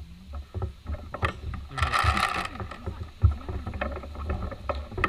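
Rustling and scattered clicks and low bumps from a player creeping through brush with a handheld camera, with a longer hissing rustle about two seconds in.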